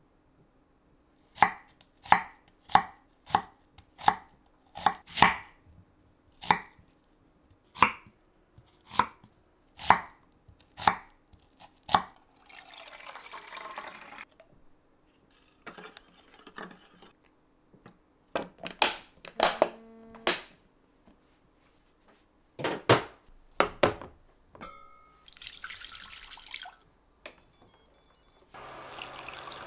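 Kitchen knife chopping on a cutting board with slow, separate strokes, about fourteen over ten seconds. Afterwards come a few clusters of knocks and clatters and stretches of hissing noise.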